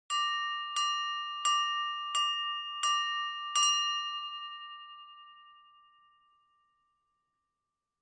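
A piece of silverware tapped six times, evenly, against a drinking glass, the glass ringing with a clear bell-like tone: the clinking that calls a room to attention for a toast. After the last tap the ring fades out over about three seconds.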